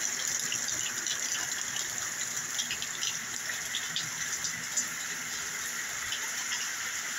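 Steady rain falling: an even hiss with scattered sharper drops.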